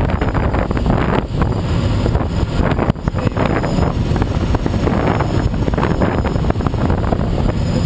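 Steady rush of air buffeting the microphone of a camera mounted on a Schweizer SGS 2-33A glider in flight, with brief dips about a second and three seconds in.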